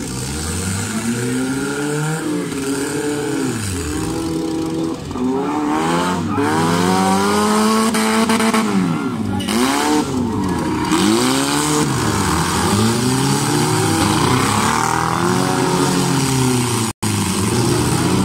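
Engines of several demolition derby cars revving up and down on a dirt track, their pitch rising and falling over and over as they accelerate and back off. The sound cuts out for an instant near the end.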